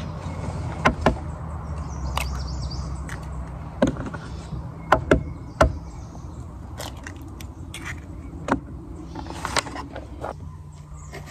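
Scattered sharp clicks and taps of hands handling food and a foil pan on a wooden picnic table, irregular and a second or so apart, over a low steady rumble.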